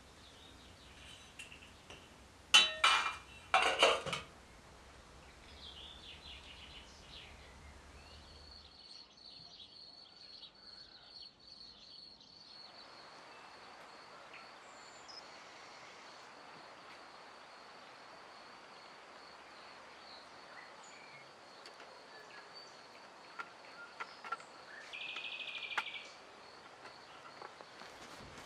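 A small metal pot clinks sharply twice a few seconds in. A cricket then trills steadily in rapid, even pulses, with a brief buzzy call near the end.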